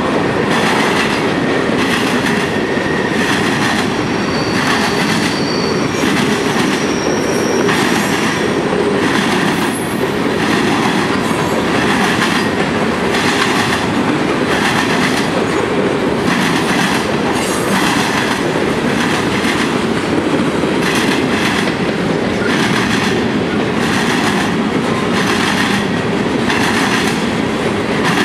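Freight cars rolling past close by: a steady rumble of steel wheels on rail with repeated clacking as the wheel sets pass over the rail joints. A few brief high-pitched wheel squeals come a few seconds in.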